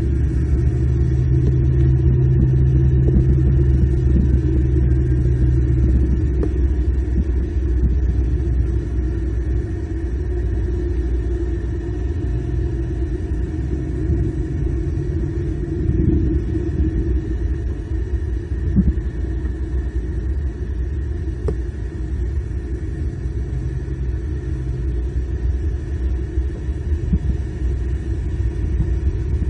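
Steady low rumble of outdoor background noise, with a low hum over the first six seconds or so.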